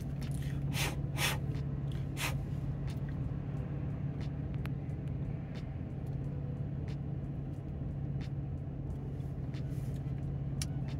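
Steady low hum of a car running, heard from inside the cabin. A few short airy sounds come about one to two seconds in, with faint scattered clicks after them.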